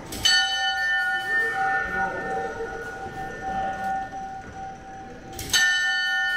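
An antique clock striking its bell twice, about five seconds apart; each stroke rings on for several seconds with several tones.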